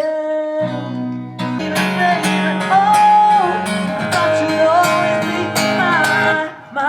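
Live acoustic guitar and a singer performing a song: strummed chords under a sung melody with long, held notes.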